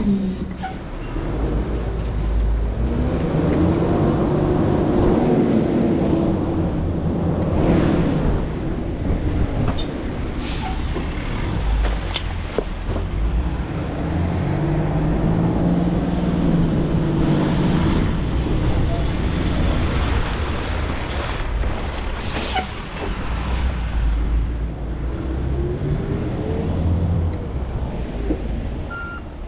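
Garbage truck engine running with a heavy low rumble, its pitch rising and falling several times as it revs, with a couple of short, sharp air-brake hisses.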